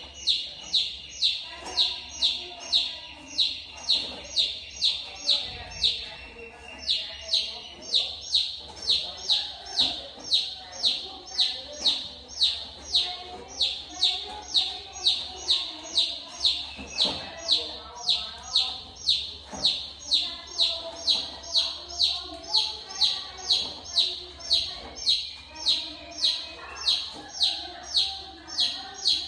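A bird chirping over and over, short high chirps that drop in pitch, about two a second, very evenly spaced.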